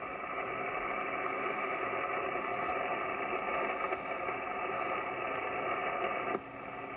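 Steady hiss of 80-metre band noise from a Kenwood TS-940S shortwave transceiver's speaker in single-sideband receive, cut off above a narrow voice bandwidth and carrying faint steady tones. It drops suddenly in level a little over six seconds in.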